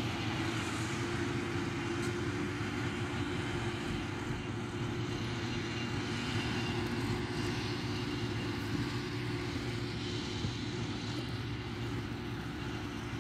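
An engine running steadily at a constant speed, an even drone with a low hum and a higher steady tone throughout.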